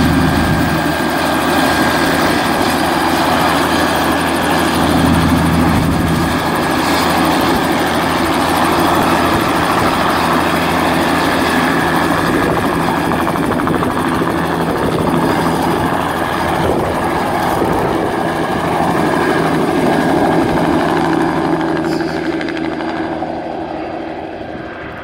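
Bell 206 JetRanger-type light turbine helicopter running with its two-bladed rotor turning, a steady high turbine whine over the rotor's rumble, as it lifts off and flies away. The sound fades over the last few seconds as it moves off into the distance.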